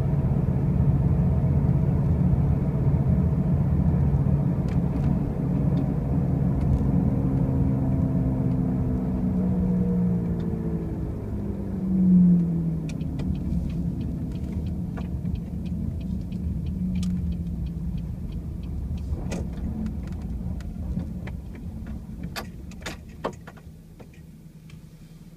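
2005 Pontiac Grand Prix driving with a loud low droning hum that falls in pitch as the car slows and fades away toward the end, with scattered clicks in the second half. The noise persists despite brand-new wheel bearings and new tires, and its cause is unknown to the owner.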